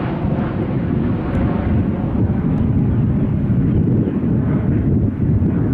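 Boeing 737's jet engines at takeoff power as it climbs away after takeoff: a loud, steady low rumble.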